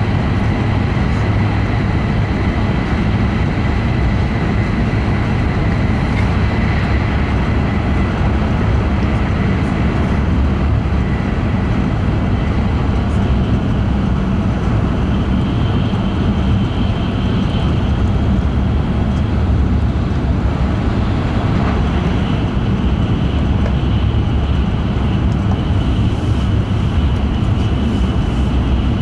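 E5 series Shinkansen running at speed, heard inside the passenger cabin: a steady rumble with a faint high whine that gives way to a higher-pitched one about halfway through.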